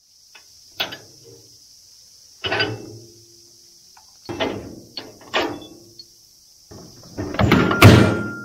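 Steel tubes of a tractor PTO driveshaft clanking as they are handled and slid together. There are four separate metallic clanks, some with a short ring, then a longer, louder rattle near the end.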